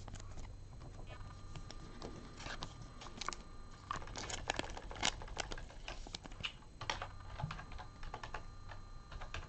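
Scattered light clicks and taps at an irregular pace, from small hard things being handled, over a faint steady hum.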